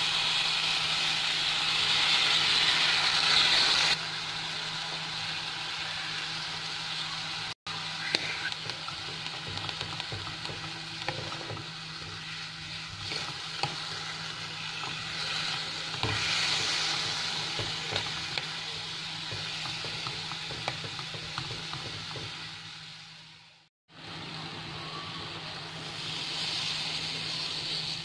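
Beef slices sizzling in a hot wok, loudest for the first few seconds as soy sauce goes in, then a wooden spatula scraping and stirring the meat with scattered clicks. A steady low hum runs underneath.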